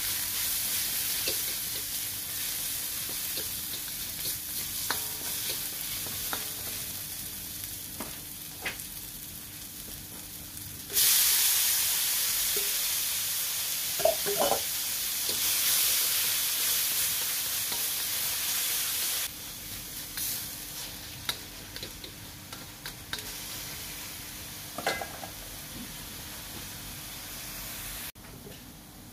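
Oil sizzling in a wok as minced aromatics are stir-fried. About eleven seconds in, raw ground pork goes in and the sizzle becomes suddenly much louder, then dies down over the next several seconds as the meat cooks. The spatula scrapes against the steel wok now and then.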